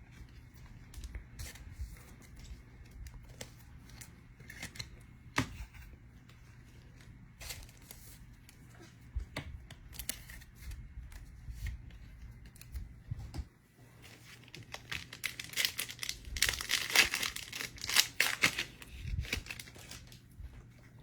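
Trading card pack wrapper being torn open and crinkled, with a dense stretch of tearing about two-thirds of the way in. Before it, light scattered clicks and taps of cards being handled.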